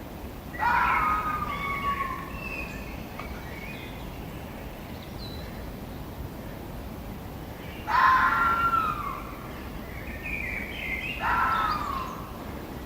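A fox calling: three harsh, short calls, about half a second in, about eight seconds in and around eleven seconds, each sliding down in pitch, over a steady background hiss.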